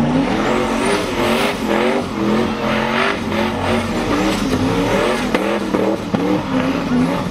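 G-body car doing a smoky burnout and donuts: the engine revs rise and fall over and over, with the hiss of spinning tyres under it.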